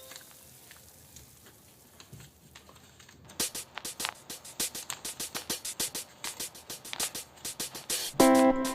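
Background music: a faint lull, then a quick, even ticking percussion beat of about five ticks a second, and guitar chords come in near the end.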